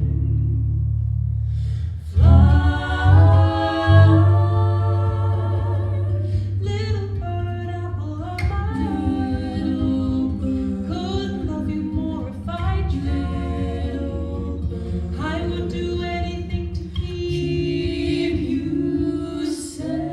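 Voices singing a slow folk melody with wavering vibrato over a steady low drone, largely unaccompanied.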